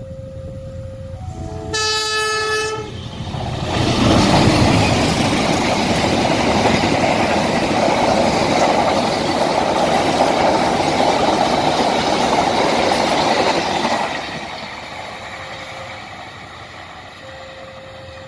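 A train horn sounds one short blast, about a second long, with a slight fall in pitch. A train then passes with a loud rushing rumble for about ten seconds before dying away.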